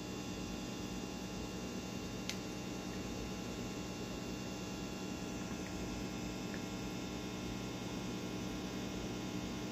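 Steady low hum with an even hiss behind it, and one faint tick about two seconds in.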